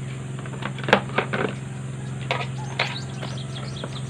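Items being handled in a hard plastic tool case: a few sharp clicks and knocks, the loudest about a second in, over a steady low hum.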